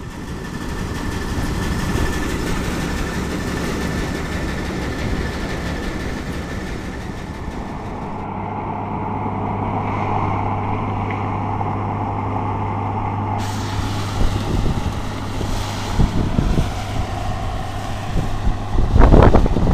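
Bizon Z110 hydrostatic combine harvester running while it harvests: a steady engine and machinery drone. A few loud low thumps come near the end.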